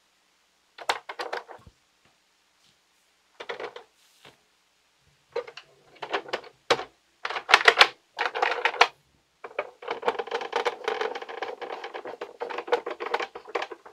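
Hard plastic parts of a toy pinball game clicking and rattling as they are pressed into place and handled: a few short bursts of clicks, then a longer stretch of denser clatter in the last few seconds.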